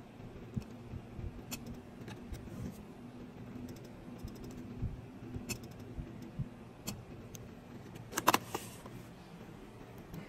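Scattered small clicks and taps of a hand-held blade and fingers working a rubber mold in its metal ring, over a steady low hum, with a short louder clatter about eight seconds in.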